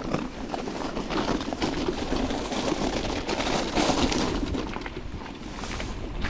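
E-mountain bike riding over a rough trail: steady tyre rumble with many quick rattles and knocks from the bike.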